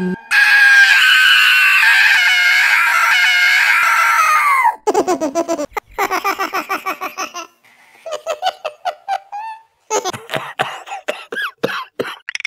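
Cartoon character voice effects: a long high-pitched wavering squeal for about four and a half seconds, then two runs of quick giggling laughter.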